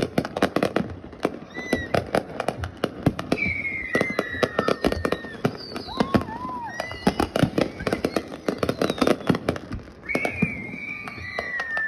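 New Year's fireworks going off in a rapid, dense run of pops and bangs, with several long falling whistles sounding over them.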